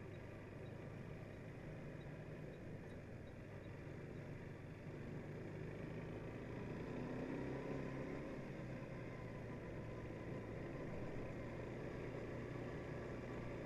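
Quad bike engine running steadily at low riding speed, getting a little louder about halfway through.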